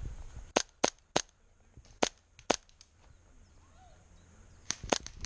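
Airsoft guns firing single shots: about seven sharp cracks in loose groups of three, two and two.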